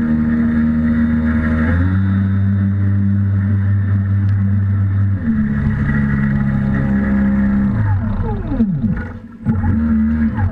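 Radio-controlled model lobster boats' motors running at a steady pitch that steps up and down. A little past 8 seconds a boat passes close by and its pitch drops as it goes past.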